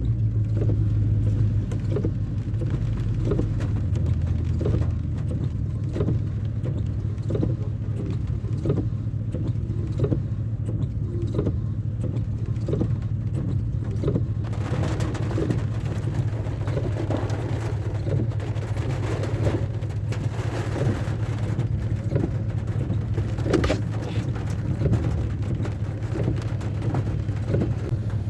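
A car or truck driving: a steady low rumble of engine and road noise, heard from inside the vehicle, with a hiss joining about halfway through.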